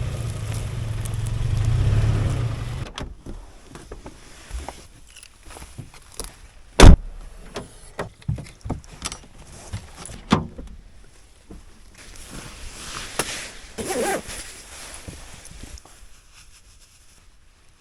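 A car engine running with a low rumble for the first three seconds, then cutting out, followed by scattered knocks and clicks, with a sharp thump about seven seconds in and another about ten seconds in.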